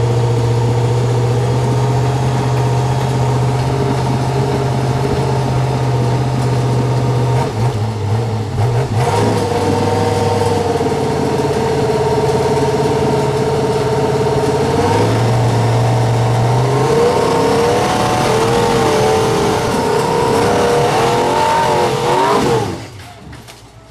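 Off-road rock buggy engine running hard at high, steady revs, then revving up and down for the last several seconds before cutting off sharply near the end.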